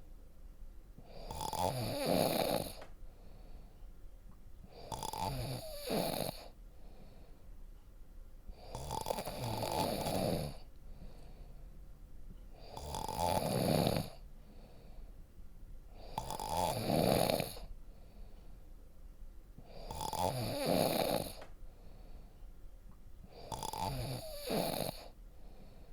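A person snoring deeply and steadily, one loud, rasping snore about every four seconds, seven in all, with quiet breathing gaps between.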